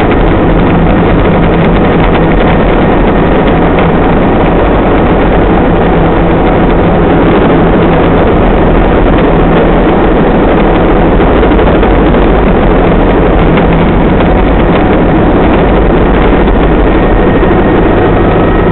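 Helicopter's engine and rotor running loud and steady, a low hum under a constant rushing noise, heard close up from aboard the aircraft as it sets down at a helipad.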